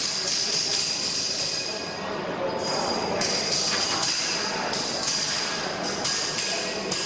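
Workshop machine noise: a steady high whine under a hiss that cuts in and out.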